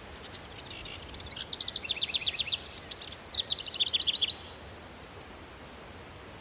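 A small songbird singing two fast trills of rapidly repeated high notes, one after the other, stopping abruptly about two-thirds of the way through, over a steady low hiss of city background.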